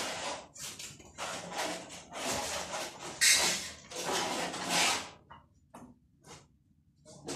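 Steel hand trowel scraping wet cement mortar: a run of rough scrapes of uneven length, the sharpest about three seconds in, then mostly quiet with a few faint taps for the last two seconds.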